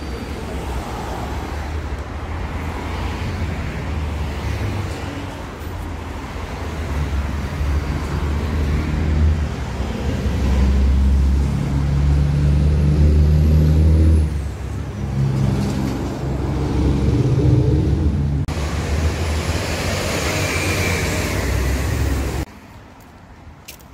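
A road vehicle's engine and road noise: a loud, steady low rumble that grows louder in the middle and cuts off abruptly near the end.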